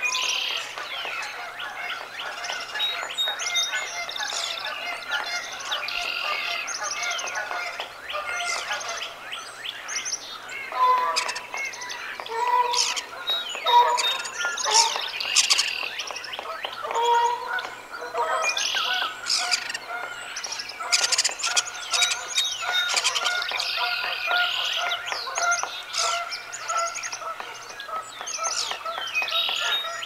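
Many wild birds chirping and singing over one another in a mixed outdoor chorus. A few lower, louder calls break in near the middle, and a faint steady hum runs underneath.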